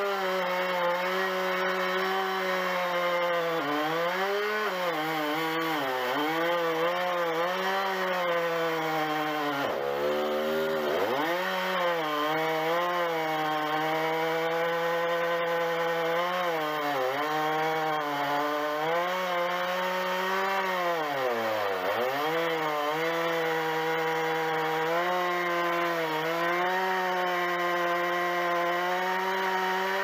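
Large two-stroke chainsaw cutting through a thick willow trunk, held at high revs, its pitch sagging each time it bogs under load in the cut, most deeply about ten seconds in and again near twenty-two seconds.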